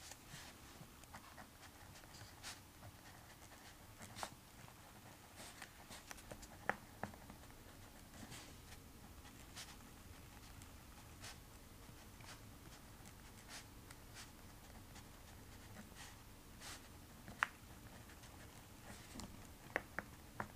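Faint scratching of writing on paper in short strokes, with a few sharp taps.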